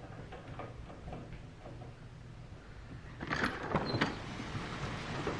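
A quiet room with a few faint ticks, then, about three seconds in, the metallic clicks and rattle of a deadbolt and doorknob being turned as a door is unlocked and opened.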